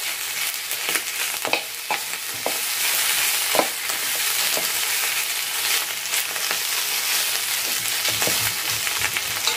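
Pieces of pork trotter sizzling on a hot electric griddle pan, with a steady frying hiss. A metal utensil clicks and scrapes against the pan now and then as the pieces are stirred and turned.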